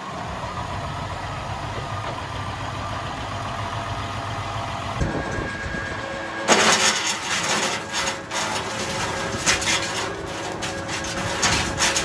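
Tractor engine running steadily, driving a PTO wood chipper. About six and a half seconds in, the chipper starts chewing up a long, thin branch, with loud, uneven crackling and snapping from the shredding.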